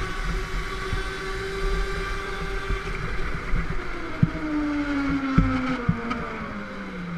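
Go-kart motor running at speed, its pitch holding steady and then falling from about four seconds in as the kart slows into a turn. A few sharp knocks come through in the middle.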